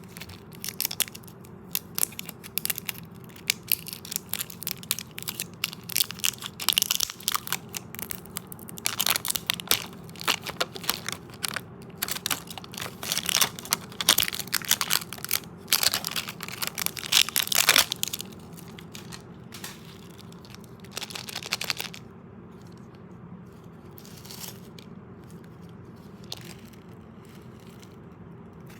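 Crunching and crackling of candy-coated chocolates (M&Ms): dense, sharp crunches for about twenty seconds, then only a few faint ones near the end.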